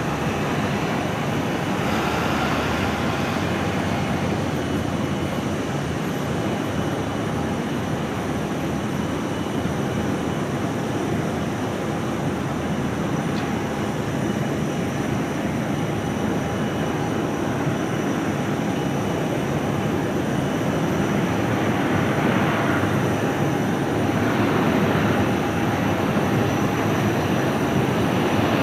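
Airbus A320 jet engines droning as the airliner comes in to land, touches down and rolls out on the runway; the noise grows louder in the last few seconds of the rollout.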